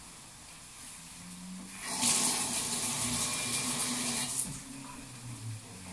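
Kitchen tap running for about two and a half seconds, starting about two seconds in and then shut off.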